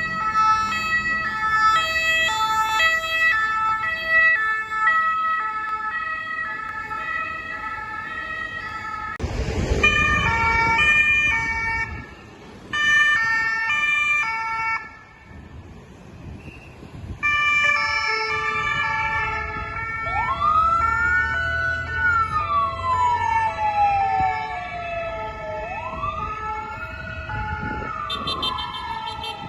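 French two-tone emergency siren on ambulances, switching back and forth between two notes, with a brief loud rush about nine seconds in. In the second half a wailing siren also joins, rising and then sliding slowly down, twice.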